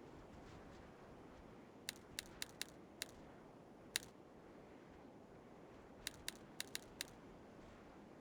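A series of sharp, light clicks or taps over a faint steady hiss: five quick ones about two seconds in, a single louder one near the middle, then another quick run of five about six seconds in.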